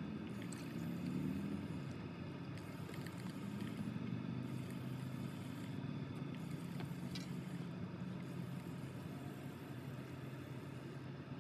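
Low engine hum with a wavering pitch, swelling about a second in and again around four seconds.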